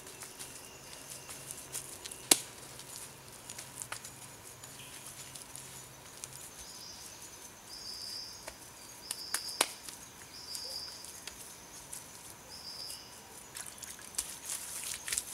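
Forest insects chirping, with about five short high buzzes through the middle. Scattered sharp knocks and pats come from hand work on a mud-covered clay furnace, one louder knock about two seconds in.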